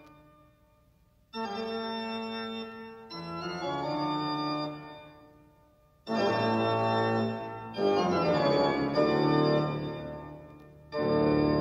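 Organ music: a slow series of about five sustained chords, each starting suddenly and fading away before the next one comes in.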